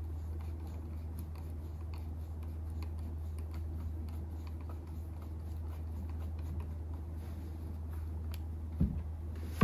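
Insulated ratchet clicking in small, rapid ticks as a bus bar nut is tightened on a battery module terminal, over a steady low hum. A dull thump about nine seconds in.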